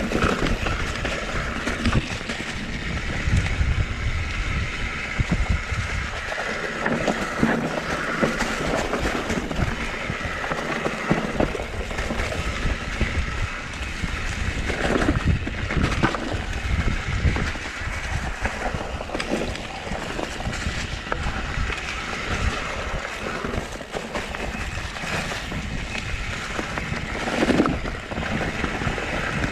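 Mountain bike ridden down a dirt trail: tyres rolling over dirt and rocks with the frame and parts knocking and rattling, and wind on the microphone. A few harder jolts stand out, the loudest near the end.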